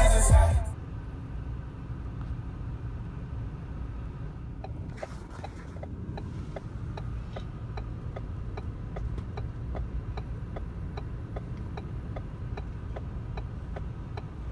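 Inside a car's cabin, a steady low engine-and-road rumble. From about five seconds in, a turn-signal indicator clicks evenly at roughly three ticks a second. Music cuts off within the first second.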